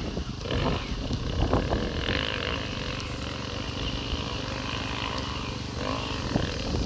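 Enduro dirt-bike engine working up a steep dirt climb, its note rising and falling as the throttle is worked.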